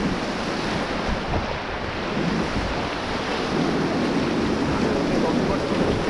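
Rushing whitewater of a river rapid churning around an inflatable raft, a steady loud roar of water, with wind buffeting the microphone.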